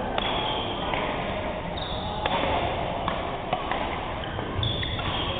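Badminton rally in a reverberant sports hall: several sharp racket hits on the shuttlecock about a second apart, with short high squeaks of shoes on the wooden court.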